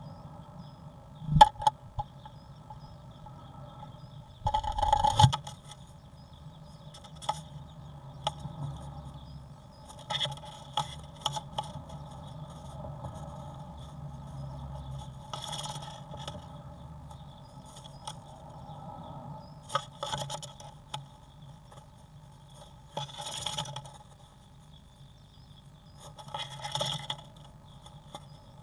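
A great tit's claws scrabbling and tapping on the bare wooden floor and walls of a nest box, in irregular short scuffles, as it shuffles and wriggles about the floor. A louder knock and scuffle comes about five seconds in, over a steady hum.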